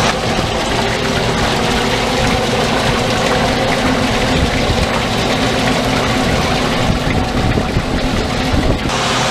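FRS Vac 1450 mobile vacuum filtration unit running: a steady machine hum from its pumps and vacuum system, with a few steady low tones under an even rushing hiss.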